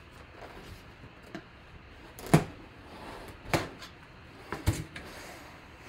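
Cardboard mailer box being handled and cut open: a few sharp knocks and clatters, the loudest a little over two seconds in, then two more near the end.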